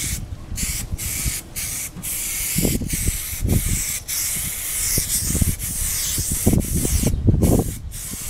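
Aerosol spray can of white primer hissing in a string of short sprays with brief breaks between them, coating a flexible plastic motorcycle fairing. The nozzle is not spraying out clean, spitting dots of primer, with low rumbles underneath.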